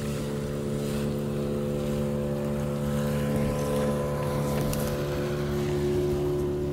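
A boat motor running steadily at an even speed, with a low hum and light wind noise.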